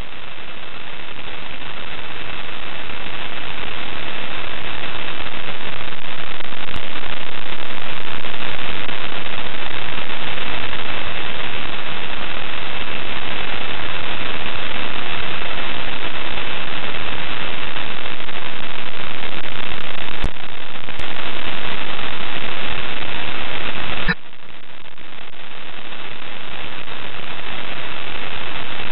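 Loud steady radio static on the ISS live stream's space-to-ground audio channel, with a faint high steady tone running through it. A click comes about 20 seconds in and a sharper one about 24 seconds in, after which the hiss drops away and slowly swells back.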